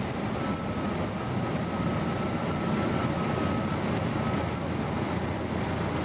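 Cessna 152's four-cylinder Lycoming engine and propeller running steadily with wind noise. A thin, steady high tone sounds for about four seconds, starting about half a second in.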